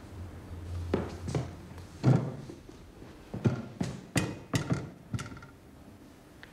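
Irregular knocks and taps, about a dozen, as a tripod-mounted large-format view camera is moved and handled, with a brief squeak about five seconds in.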